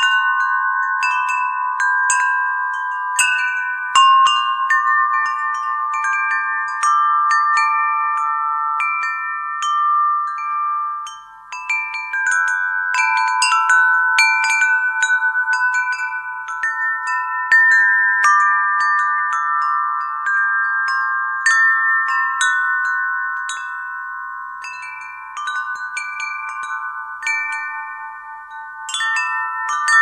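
Wind chimes ringing: irregular strikes of several pitched tones that ring on and overlap. There is a short lull about eleven seconds in.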